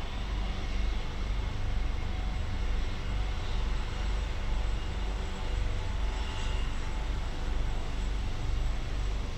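Airbus AS365 Dauphin twin-turbine helicopter running on the ground with its rotors turning, before lifting off. It gives a faint steady turbine whine over a low, uneven rotor rumble.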